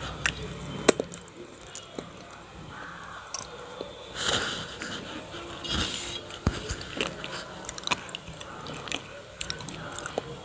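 Close-miked mouth sounds of eating a wet, creamy paste: sharp lip smacks and wet clicks with chewing. About 4 and 6 seconds in there are short rough bursts that fit fingers scraping the paste across a steel plate.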